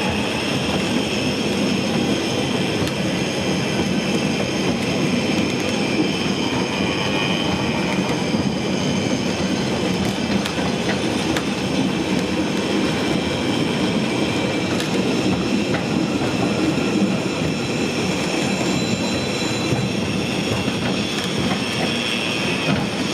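Train in motion: a steady rumble of wheels on the rails, with a faint high wheel squeal that wavers in and out.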